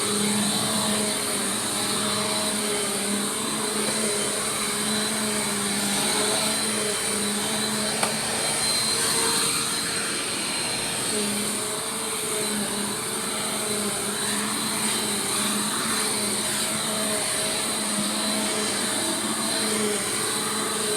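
Bissell PowerForce Compact Turbo upright vacuum cleaner running steadily, its motor hum wavering slightly in pitch as it is pushed, with a brief click about eight seconds in.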